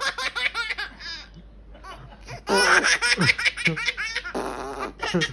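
Toddlers laughing hard in bursts: a quick run of laughs at the start, a quieter gap, then a longer, louder run of laughter from about two and a half seconds in.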